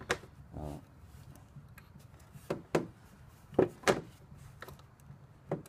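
A scattering of short, sharp knocks and clicks from hands handling tools and hard plastic, about seven in all, the loudest two close together a little past the middle.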